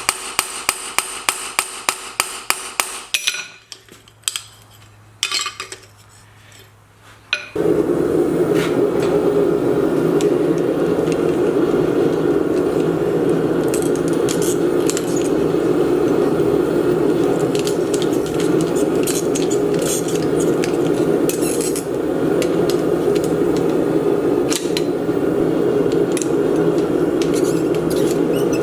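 Small cross-peen hammer striking steel hinge pins in a fast run, about four or five ringing metallic blows a second, then a few single blows. From about seven seconds in a steady, loud rushing noise takes over and runs on unchanged.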